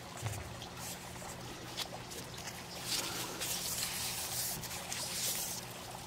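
Plastic flagging tape crinkling and rustling in uneven surges as it is wrapped tightly around a fig tree's trunk by hand.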